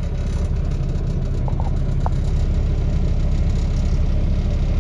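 Dump truck diesel engine idling with a steady low rumble, heard from inside the cab.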